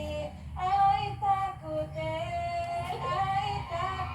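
A high voice singing a melody in long held and gliding notes, over a low musical backing.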